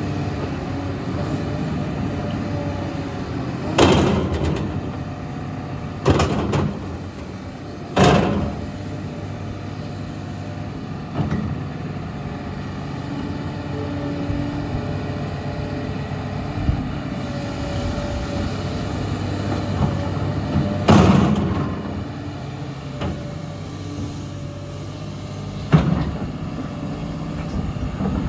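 SANY SY215C LC hydraulic excavator's diesel engine running steadily, with about five sharp knocks or clunks spread through it.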